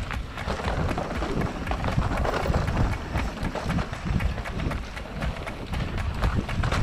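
Electric mountain bike riding down a rough dirt singletrack: knobby tyres rolling over rocks and roots with a constant clatter of knocks and rattles from the bike over the bumps.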